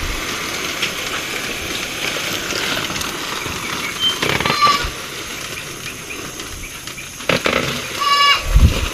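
Cracked corn kernels pouring from a sack into a plastic container: a steady rushing hiss. Two brief, high animal calls break in, about four seconds in and near the end.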